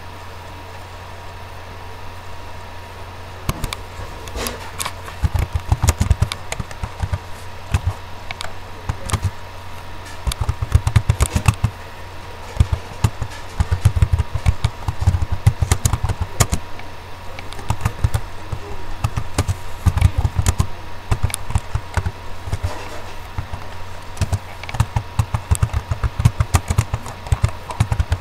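Computer keyboard being typed on: irregular runs of key clicks with low thuds, broken by short pauses and starting a few seconds in, over a steady low hum.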